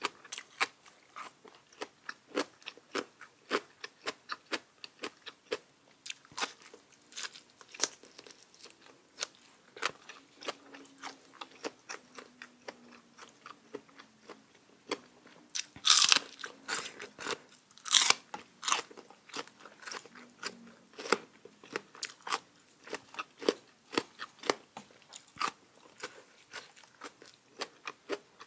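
Mukbang eating sounds: a person biting and chewing spicy papaya salad, a quick run of crisp crunches and wet chewing, with two much louder crunches a little past halfway.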